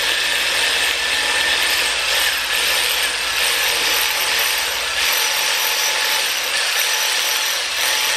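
Ratchet wrench clicking in a fast, continuous run, turning the engine's crankshaft to bring it back to top dead centre.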